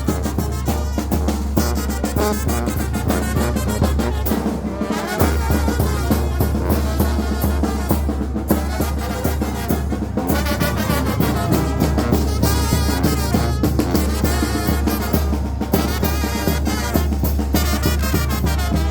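Traditional Mixtec brass band playing a lively dance tune, with trumpets, trombones, saxophone and drums. The low bass line changes pitch about five seconds in.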